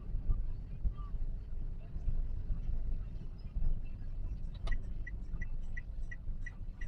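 Low road and engine rumble inside a Toyota Calya's cabin; about two-thirds of the way in there is a click, and a turn-signal indicator starts ticking, about three ticks a second.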